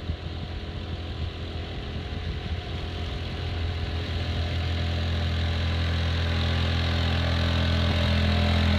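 Small outboard motor pushing an inflatable dinghy, running at a steady speed and growing gradually louder as the boat approaches.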